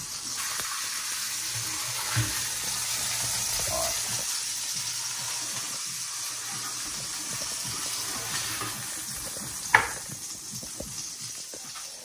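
Oil sizzling in a frying pan on the stove, a steady high hiss. A small knock comes about two seconds in, and one loud, sharp knock about ten seconds in.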